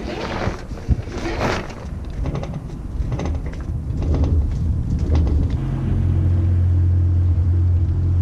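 Loose sail cloth flapping and rustling on a sailboat as the sail is hoisted. Under it is a low rumble, which turns into a loud, steady low hum about six seconds in.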